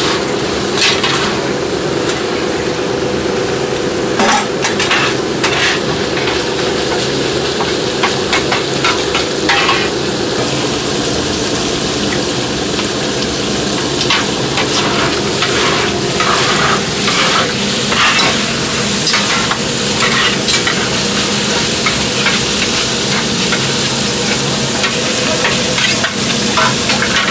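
Gopchang (intestines) and vegetables sizzling on a hot flat steel griddle while a metal spatula scrapes and turns them, with repeated scrapes and clacks against the plate. The sizzling gets louder about ten seconds in.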